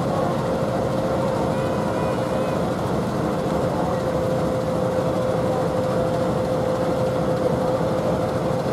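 Steady engine rumble of a train standing at the platform, with a constant mid-pitched hum running through it. Faint voices underneath.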